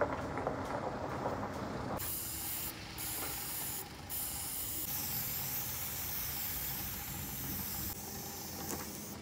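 Handheld paint sprayer hissing as it lays a coat of white oil paint, starting about two seconds in and stopping briefly twice. A rustling noise comes before the spraying starts.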